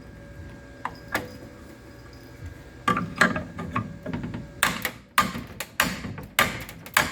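Hammer striking steel panel against a dolly, panel beating a cracked car cross member back into shape: a couple of light taps, then about three seconds in a run of sharp metal blows, irregular and a few per second, getting louder.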